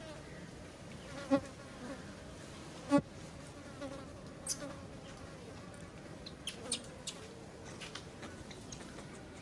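An insect buzzing steadily, with two short, loud squeaks about one and three seconds in and a few sharp clicks in the second half.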